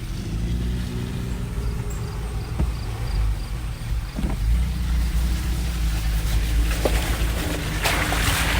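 Toyota FJ Cruiser's 4.0-litre V6 engine running at low speed while crawling over an off-road trail, with a few short knocks. A rushing noise comes in near the end.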